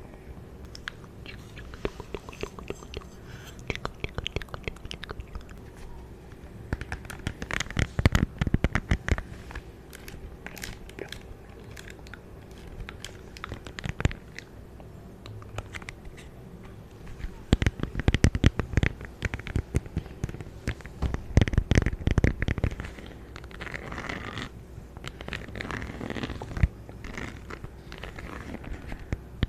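Close-miked object handling: irregular crisp clicks, taps and crunchy crackles, coming in denser, louder clusters several times.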